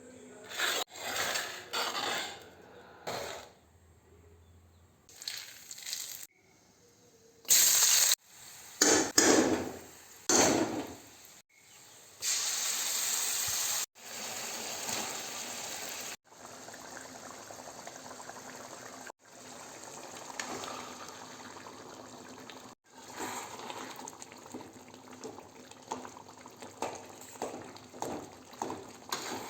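Cooking sounds in short clips cut one after another: clatter of utensils against pots, splashing water, and a steady sizzle of frying with small clicks of stirring.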